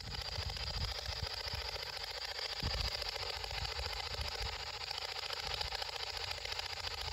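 Spirit box, a radio scanner sweeping through stations, hissing with steady static and a faint fast choppy flutter, cutting in abruptly at the start. There are low thumps under the hiss.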